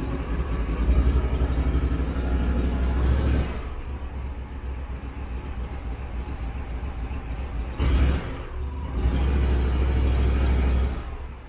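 Argo 6x6 amphibious ATV's engine revving in two bursts of about three seconds each, dropping back to a lower idle between them.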